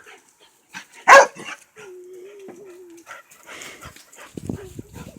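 A dog barks once, loudly, about a second in, then gives a drawn-out whine lasting about a second; low scuffling sounds follow near the end.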